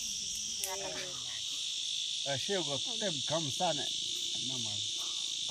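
Insects droning in a steady high-pitched buzz, with children's voices calling faintly a little past halfway.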